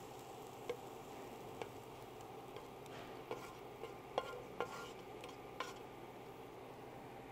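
Wooden spatula tapping and scraping against a stainless steel skillet as cooked vegetable dumpling filling is scraped out into a steel mixing bowl: a string of irregular light knocks and clicks, a few with a short metallic ring, over a faint steady hiss.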